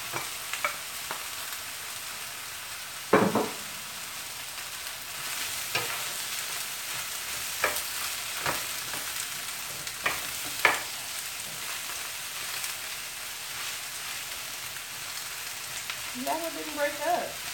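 Vegetables sizzling in a hot skillet as they are stirred with a wooden spoon: a steady frying hiss with scattered knocks of the spoon against the pan, the loudest about three seconds in.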